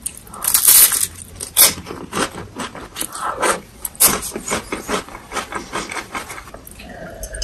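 Close, crisp crunching of a deep-fried, crispy ice cream cone being bitten and chewed: a loud crackling bite about half a second in, then a run of irregular crunches as it is chewed.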